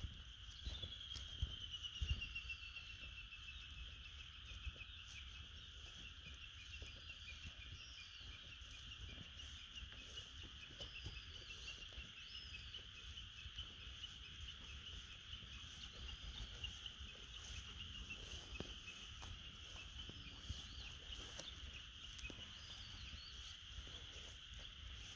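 Outdoor wildlife chorus: a steady, high-pitched chirring that opens with a trill sliding down in pitch about a second in, over a low rumble and scattered light clicks.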